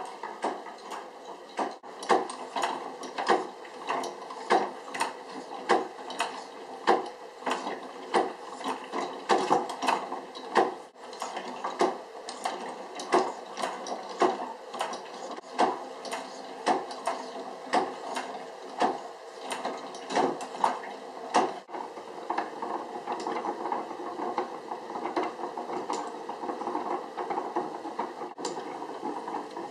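Automaton mechanism running: its gears and cams click and clack about once or twice a second over a steady mechanical whir. After about three-quarters of the way through, the clicks give way to a denser rattle.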